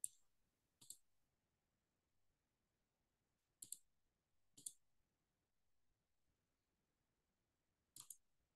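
A few sharp computer mouse clicks, spaced a second or more apart, over near silence, with a quick double click near the end.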